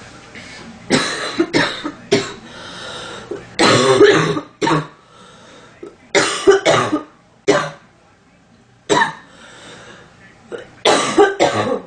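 A woman coughing in repeated bouts, two or three short, sharp coughs at a time, with pauses of up to about a second and a half between bouts.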